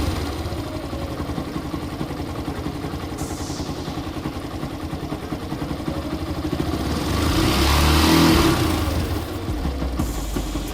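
Yamaha SZ-RR's single-cylinder engine idling, revved once about seven seconds in and settling back to idle. The bad rattling noise from inside the engine, which came from the magnet (stator) side, is gone after the repair.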